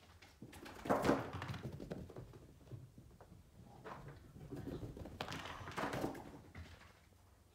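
Soft thuds and scuffling, loudest about a second in and again between about four and six seconds in.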